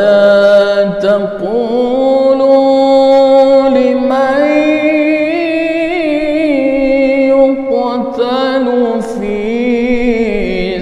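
A man's solo Quran recitation (tilawah) in the melodic competition style, with long held notes and wavering ornaments. The pitch climbs in the middle of the phrase, and a new phrase begins about eight seconds in.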